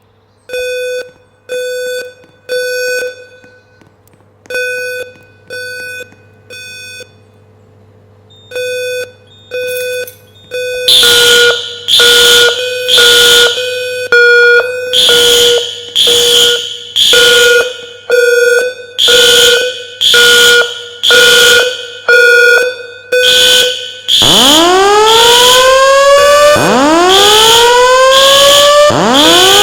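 Building fire alarm horns sounding the three-beep evacuation pattern: three beeps, a pause, repeating, getting much louder about 11 seconds in as louder horns join. About 24 seconds in, a loud siren-like whoop tone takes over, rising quickly in pitch and repeating about every two and a half seconds.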